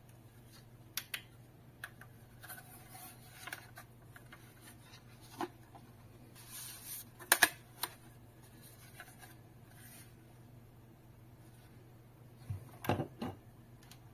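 Hands handling a plastic router casing: rubbing and scattered clicks and taps, the loudest a sharp double click about seven seconds in, and a cluster of knocks and clicks near the end as the power-supply plug and cable are handled. A faint steady low hum runs underneath.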